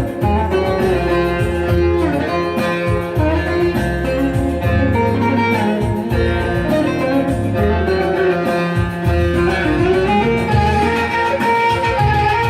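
Instrumental introduction to a Turkish folk-style song: plucked string instruments over a pulsing bass line, with bowed strings.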